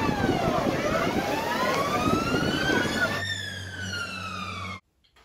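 Emergency-vehicle siren wailing, gliding slowly down, back up over a couple of seconds and down again, over a busy low rumble. It cuts off suddenly near the end, leaving near silence.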